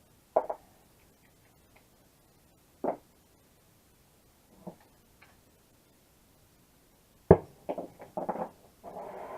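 Scattered knocks and clanks of tools on metal during exhaust manifold work, the loudest about seven seconds in followed by a quick run of smaller knocks. A steady rushing noise starts just before the end.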